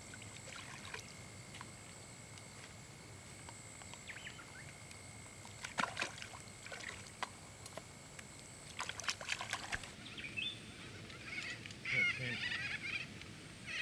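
A flock of birds starts squawking and chattering loudly about ten seconds in. Before that, a steady high thin whine lies under a few short splashes of water being scooped by hand with a bowl.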